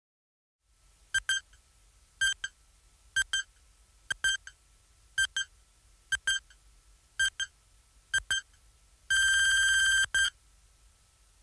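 Countdown timer beeps: a short, high double beep about once a second, eight times, then one long beep of about a second and a last short beep at zero. A faint steady tone hums underneath.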